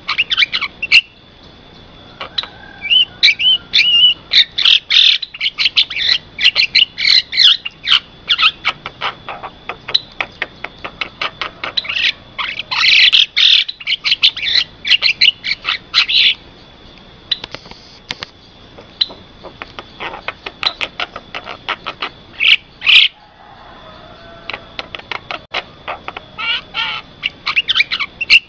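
Javan myna (jalak kebo) calling: dense runs of quick, harsh chattering and whistled notes in bursts, broken by short pauses.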